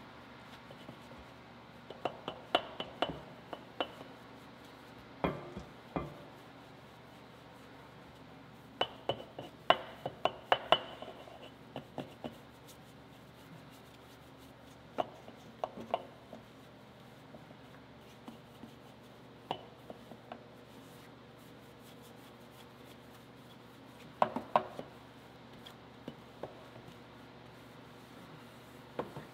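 Wheel brush being worked in and out of the spokes of a Ferrari 488's wheel, knocking and clicking against the rim and spokes in irregular clusters, a few knocks with a short bright ring. The busiest spells are about 2 s in, around 9 to 12 s, and around 24 s.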